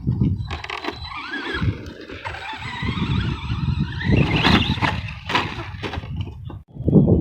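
Electric motor of an Arrma Big Rock v3 RC truck whining, rising and falling in pitch as it is driven, over a gusting low rumble with a few sharp knocks.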